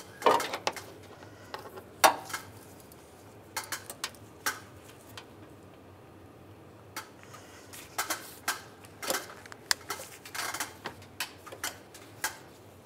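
Irregular clicks and light metallic clinks of an upper radiator hose and its metal hose clamp being handled and worked onto a water pump's outlet neck, with small knocks against nearby engine parts. The sharpest clicks come just after the start and at about two seconds, and there is a busier run of clicks from about eight to eleven seconds.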